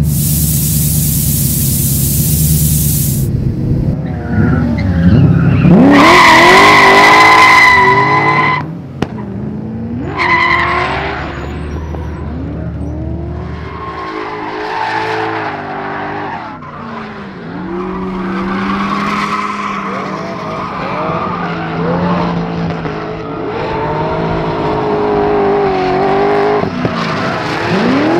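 BMW M62B44 4.4-litre V8 drift car revving hard, with a loud hiss over the first few seconds. The engine climbs to a high held rev for a couple of seconds. It then runs through a long drift, its revs rising and falling again and again, with tyres squealing and skidding.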